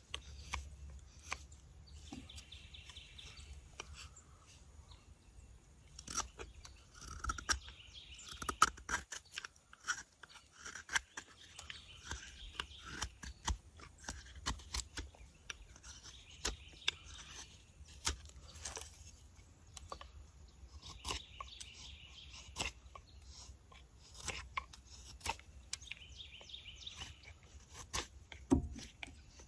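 A carving blade taking short, crisp cuts and shavings from walnut wood: an irregular run of small sharp clicks and scrapes. Birds chirp in short bursts in the background.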